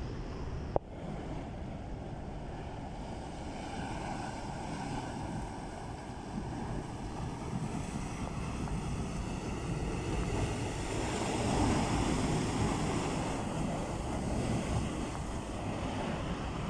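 Flash flood of mud and debris rushing down a mountain torrent channel: a steady low rushing noise that swells a little past the middle. A sharp click about a second in.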